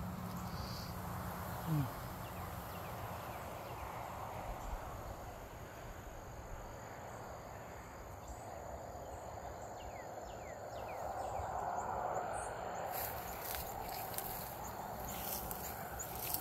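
Outdoor garden ambience: a steady high insect hum, with a few faint short chirps partway through. A brief low gliding sound comes about two seconds in, and rustling and clicking fill the last few seconds.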